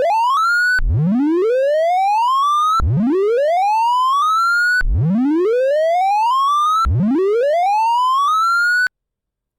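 Computer-generated sorting-visualisation tones from The Sound of Sorting, where pitch follows the value of each array element as it is accessed. A series of rising sweeps, each climbing from a low pitch to a high one over about two seconds, with a new sweep starting about every two seconds. This is the rising scan heard as the program steps through an array in ascending order. The last sweep cuts off suddenly near the end.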